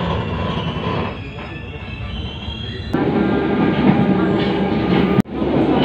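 Running noise of a moving passenger train heard from inside the carriage: a steady rumble of wheels on the rails with faint thin squealing tones. The sound changes abruptly about three seconds in and cuts out for an instant near the end.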